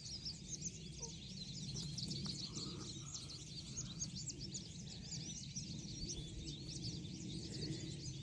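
Outdoor ambience of many birds chirping and singing at once, a dense, continuous stream of short high chirps over a low steady background hum.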